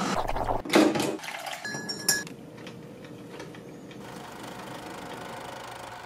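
A loud rushing noise in the first second, then a metal spoon clinks against a ceramic coffee cup with a short bright ring, followed by a steady low hiss and hum.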